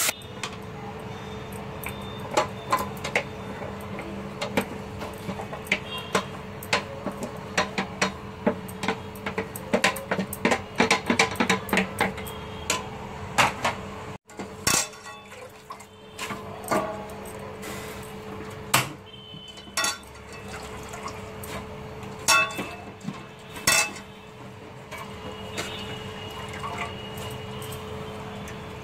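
Wooden spatula stirring and knocking against an aluminium pressure cooker pot: many irregular clinks and scrapes, thicker in the first half, over a steady low hum.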